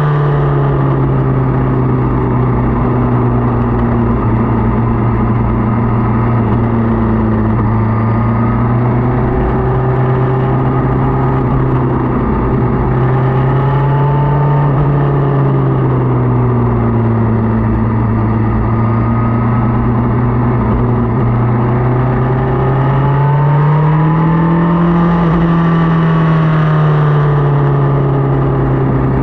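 Motorcycle engine running under way, its pitch easing up and down with throttle: it rises around the middle, dips, and climbs again a few seconds before the end. A steady rushing noise lies under it.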